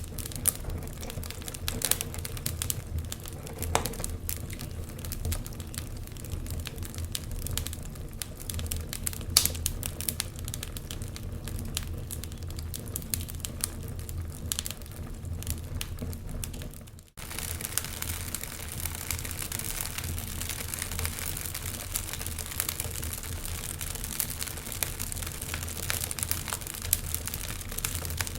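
Wood fire crackling, with irregular pops and snaps over a steady low rumble. It cuts out for a moment about 17 seconds in, then comes back with more hiss.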